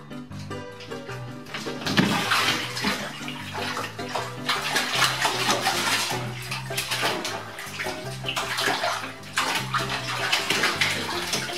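A cat falls into a filled bathtub about two seconds in and splashes and churns the water as it struggles to climb out, over background music.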